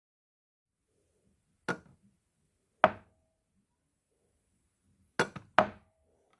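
Home-made sound effects for a bouncing basketball: four sharp thuds, the first two about a second apart, then two quick ones close together near the end, two of them with a brief ring.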